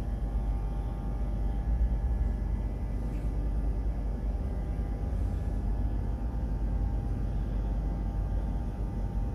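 Diesel engine of a slow-moving yellow engineering train, running steadily: a low rumble with a steady hum.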